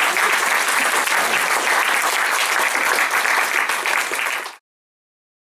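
Audience applauding, cut off suddenly about four and a half seconds in.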